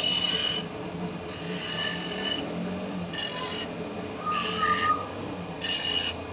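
Flat steel bar pressed against a motor-driven grinding wheel in five short grinding passes, each lasting a second or less. The wheel's motor hums steadily underneath.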